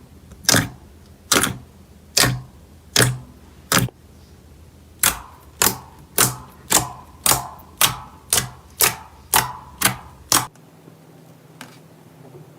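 Slime being squeezed and worked by hand, making a series of sharp clicking pops. They come about one a second at first, then faster, about two a second, and stop about ten seconds in.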